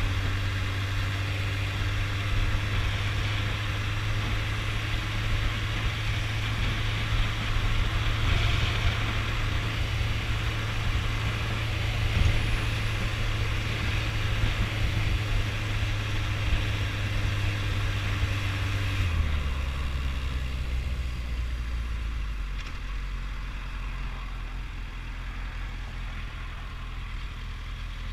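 Motorcycle engine running at a steady cruising pitch with wind noise. About two-thirds of the way in, the note drops and the wind noise fades as the bike slows, settling to a low idle near the end.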